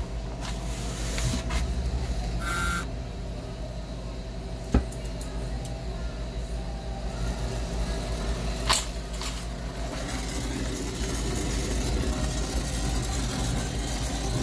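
Steady low machinery hum with two sharp clicks; from about ten seconds in, the hiss of a brazing torch flame joins it.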